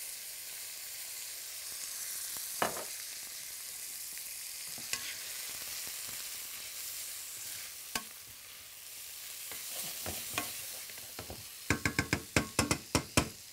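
Oil sizzling steadily in a hot pan as food fries, with a few single clicks of a utensil. Near the end comes a quick run of about ten sharp knocks.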